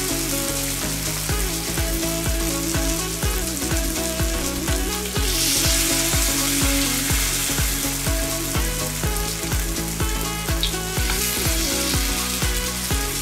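Vegetable-and-batter fritters sizzling in hot cooking oil as spoonfuls of pickled radish, fish cake and green onion batter are dropped into the pan; a steady frying hiss. Soft background music with a regular beat plays underneath.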